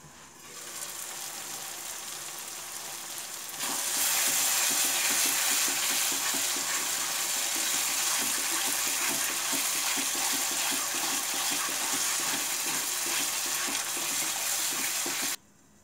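Spinach and tomato masala gravy sizzling in a nonstick kadai on a medium flame, with a spatula stirring it and scraping the pan. The sizzle grows louder a few seconds in and cuts off suddenly near the end.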